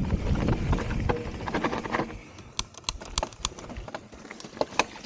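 Mountain bike rolling along a dirt trail: wind rush on the microphone fades after about a second, followed by irregular sharp clicks and taps from the bike and its tyres running over the trail.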